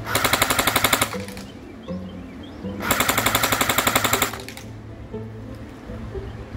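Full-metal AK-47 airsoft electric gun with a version 3 gearbox firing two full-auto bursts, a fast mechanical rattle of about 11 to 12 shots a second, the first about a second long and the second about a second and a half. The rate of fire is low, which the shooter calls kind of anemic and puts down to its 8.4 volt NiMH battery.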